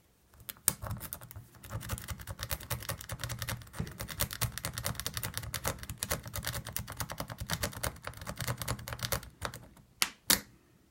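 Lock-pick rake scrubbed rapidly in and out of a car lock's keyway under tension, a fast stream of small metallic clicks as the rake jumps over the tumblers. The clicking stops near the end, followed by two sharper clicks, as the lock comes open.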